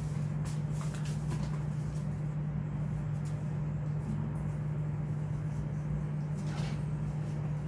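A steady low background hum with a few faint clicks in the first second and a soft rustle about six and a half seconds in.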